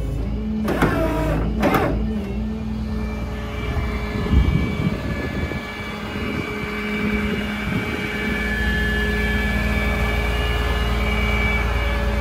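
Kenworth T270 rollback's diesel engine running with a steady whine from the PTO-driven hydraulic system, with a few low knocks about four seconds in. The whine and rumble grow louder and steadier from about eight seconds in.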